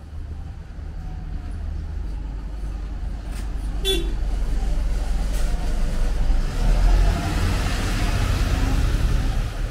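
A motor vehicle passing close by on the street, its engine rumble and tyre noise swelling to a peak about seven seconds in, with a brief high-pitched sound about four seconds in.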